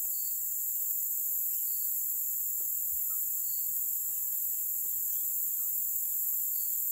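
Steady high-pitched chorus of insects in the woods, with a few faint short chirps now and then.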